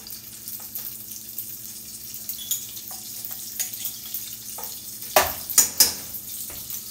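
Ghee sizzling faintly as it melts in a hot skillet, with a spoon scraping and clicking in the jar, and a few sharp knocks about five seconds in.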